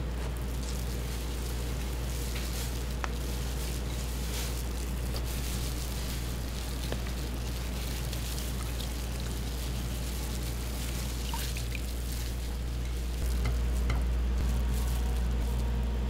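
Chicken sizzling and crackling as it cooks, over a steady low machine hum that gets louder about 13 seconds in.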